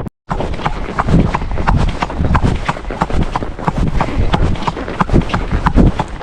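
Hoofbeats of a ridden ex-racehorse: a steady, even rhythm of hoof strikes, several a second, starting after a moment's silence.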